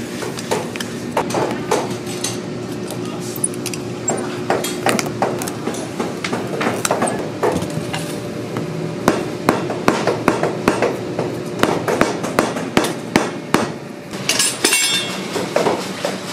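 Cobbler's tools knocking and clicking against a boot's bottom on a shoe last as the old sole and its tacks are worked off, a run of sharp knocks that comes faster, about two or three a second, in the second half, with a brief scrape near the end. A steady low machine hum runs underneath.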